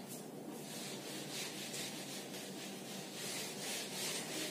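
Whiteboard eraser rubbing across a whiteboard in repeated back-and-forth strokes, a faint dry hiss.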